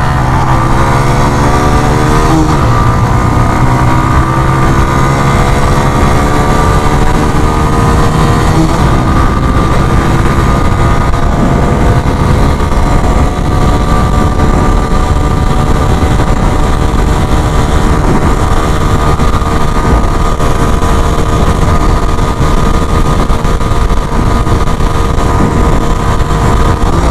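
Suzuki GS 150 SE's single-cylinder four-stroke engine accelerating hard from a rolling start. Its pitch climbs for the first several seconds, then holds steady at high revs, with wind rushing over the microphone.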